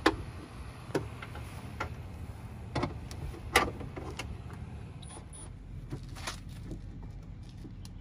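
Sharp clicks and knocks, about five, of hand work with a cordless drill at a stripped car door, the loudest near the start and about three and a half seconds in, over a steady low wind rumble on the microphone.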